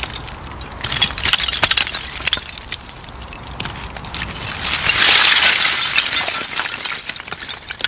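Glass bottles and shards clinking and rattling in loose rubble, building to a rushing slide of earth and broken glass about five seconds in, as part of the dug-out bank gives way.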